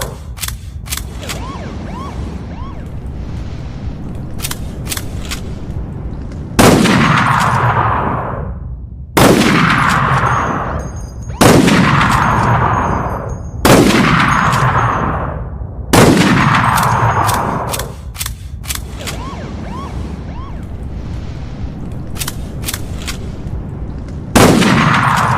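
Bolt-action rifle firing six shots, each a sharp crack with a long echoing tail. Five come about two seconds apart, then there is a pause and a last shot near the end. Between the shots, sharp metallic clicks of the bolt being worked.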